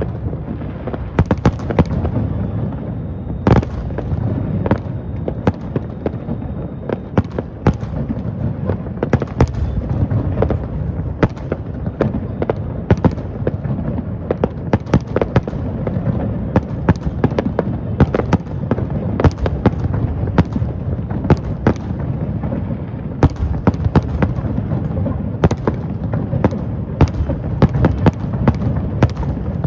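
Fireworks display: many sharp bangs and cracks, several a second, over a continuous low rumble of bursts.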